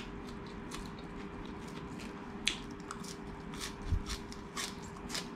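Raw green onion (scallion) stalk being bitten and chewed close to the microphone: a run of crisp, irregular crunches, a few a second.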